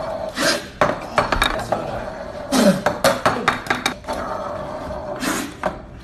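Hard plastic drinking tumblers clicking and clattering against each other and the tabletop: a series of sharp, irregular clicks and clinks over a steady room hum.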